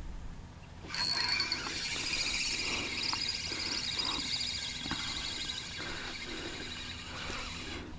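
Spinning reel being wound to retrieve a feeder rig, a high whirring that starts about a second in and stops abruptly near the end.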